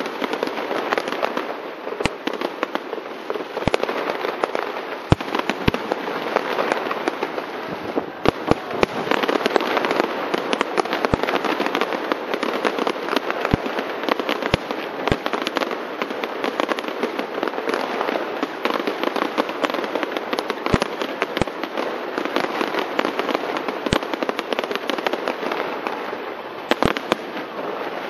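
Aerial fireworks display: a continuous dense crackle of bursting shells, with sharp single bangs scattered irregularly through it.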